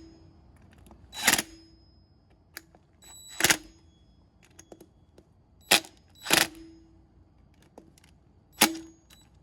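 Sharp metallic clinks of a hand tool on a steel bolt and wheel parts as the bolt is tightened, five strikes spaced a second or two apart, each ringing briefly.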